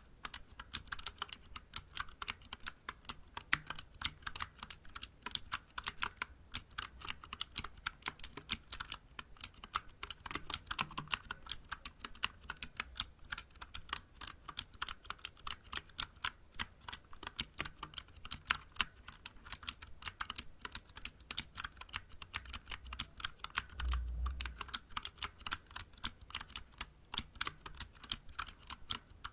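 Typing on a Vortex Vibe mechanical keyboard with Cherry MX Blue switches: a fast, continuous stream of sharp, clicky keystrokes, several a second. A brief low bump sounds about three-quarters of the way through.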